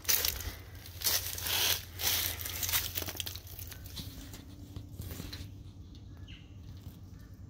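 Rustling and crackling of dry leaves and scrub, in several short bursts over the first three seconds, then quieter.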